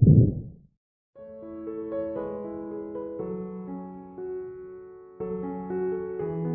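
Soft piano music, a slow run of held notes, starting about a second in. Before it, in the first half-second, a recorded stethoscope breath sound cuts off.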